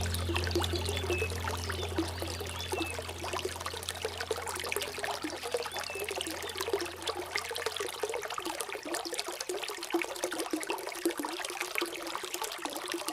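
Water trickling and splashing in a small stream, with many small irregular drips and splashes. A low hum fades out over the first several seconds.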